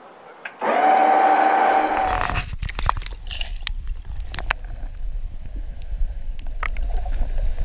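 A small electric motor whines steadily, driving the RIB's side hydrofoil down. It stops about two seconds in. Then the microphone goes under the water, leaving a low muffled rumble with scattered clicks and bubbly pops.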